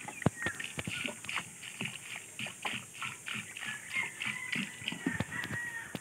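Water glugging out of the neck of a large plastic jug as it is poured onto the soil at the base of a sapling, in a quick run of gulps, with footsteps and small knocks around it.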